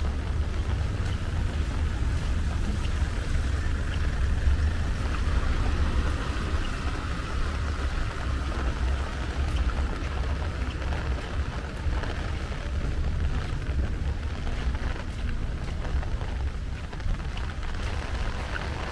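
Steady rain falling, with a low rumble underneath throughout.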